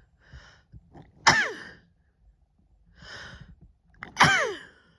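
A woman sneezing twice, about three seconds apart, from hay fever. Each sneeze starts suddenly with a voiced cry that falls in pitch, and each comes after a breathy in-breath.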